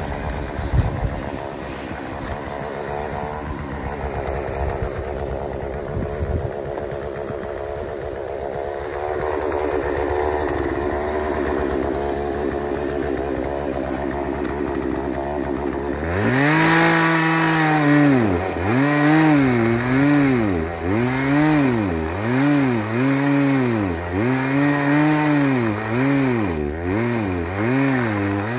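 Two-stroke chainsaw running at a steady idle with a couple of knocks, then, about halfway through, the throttle opens and the engine gets louder, its pitch rising and falling about once a second.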